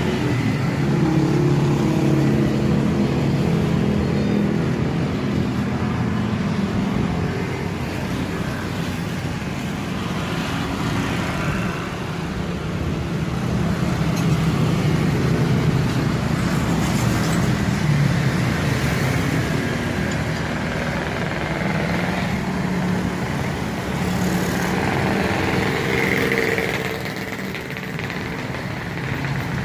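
Road traffic: motor vehicle engines running and passing, a steady hum that swells and fades slowly.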